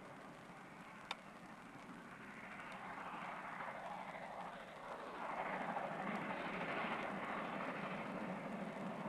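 Distant steam locomotive working a train, its exhaust heard from afar as a rushing noise that grows louder over the first five seconds or so, then holds steady. A single sharp click sounds about a second in.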